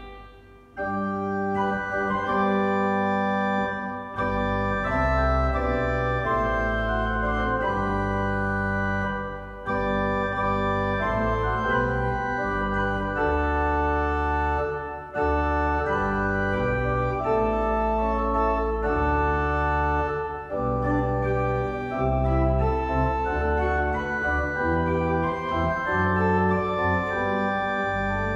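Church organ playing slow, sustained chords on the manuals over held pedal bass notes. After a brief drop in sound about half a second in, a new passage begins.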